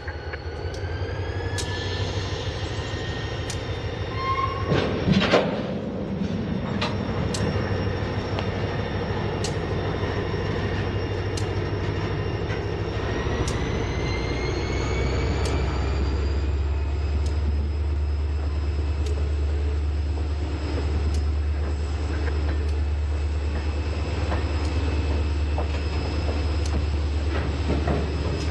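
Freight train rolling slowly past close by: a diesel locomotive's engine drone grows louder as its pitch rises twice, over regular clicks of wheels crossing rail joints. A loud burst of squeal and clanking comes about five seconds in.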